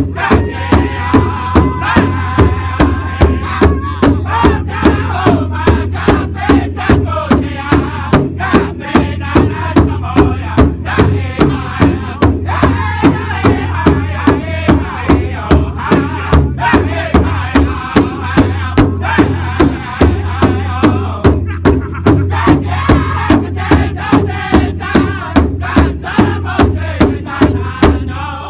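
Powwow drum group singing an intertribal song: several men sing together in high voices over a large shared bass drum struck in unison with drumsticks, in a steady, even beat.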